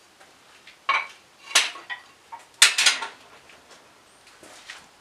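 Metal tools clinking and clanking as they are handled and set down on a workbench: a handful of sharp, ringing clanks, the loudest two close together about two and a half seconds in.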